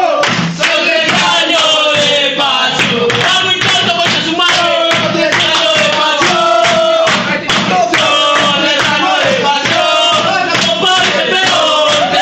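Singing with a steady drum beat: a melody carried by voices over regular drum strikes.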